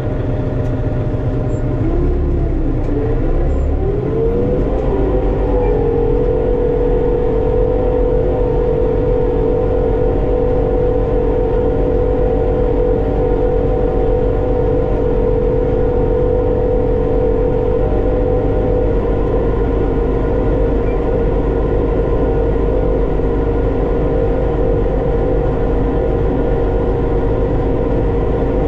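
Armatrac 1104 Lux tractor's diesel engine running. It speeds up over a few seconds near the start, then holds a steady working speed.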